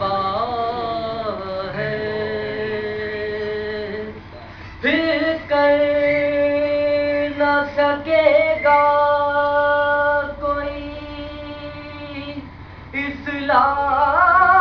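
A man reciting a Salam, a devotional Urdu elegy for Muharram, as a melodic chant with no instruments and long held notes. The voice dips briefly about four seconds in and rises in pitch near the end.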